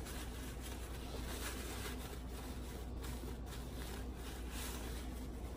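Faint rustling and light handling as a paper tissue is rubbed over a metal lipstick tube to wipe it clean, over a steady low hum.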